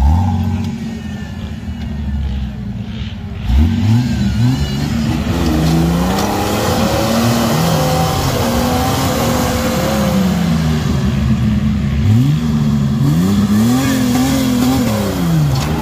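Off-road 4x4's engine revving hard under load as it climbs out of a deep dirt hole, the revs swinging up and down. There is a sharp rise in revs about three and a half seconds in and another around twelve seconds in.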